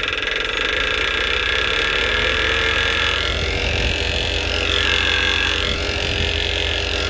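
Tractor's diesel engine running steadily, driving a belt-driven water pump for a sprinkler. The pump's impeller is not yet drawing water: it has not primed.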